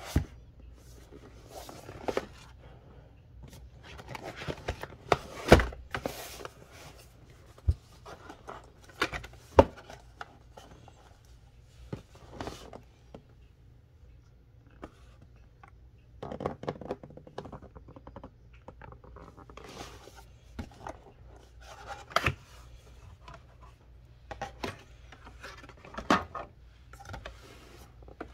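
A cardboard gift box being handled and unfolded: its flaps and panels rub, slide and scrape, with scattered rustles and a few sharper knocks.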